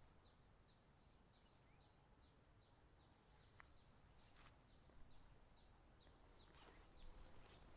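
Near silence: faint, scattered bird chirps over a quiet background hiss, with a few faint brief rustles in the second half.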